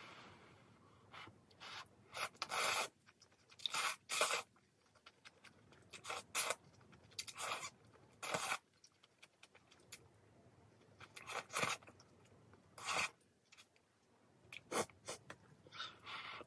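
Instant ramen noodles being slurped off chopsticks: a series of short noisy slurps, many in quick pairs, with brief pauses between mouthfuls.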